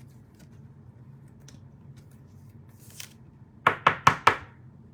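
Trading cards being handled at a table, with four quick sharp taps or clicks in a row near the end.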